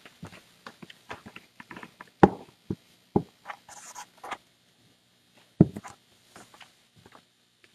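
Handling noise from a camera being repositioned: a run of small clicks, taps and rustles, with two louder knocks about two seconds in and about five and a half seconds in.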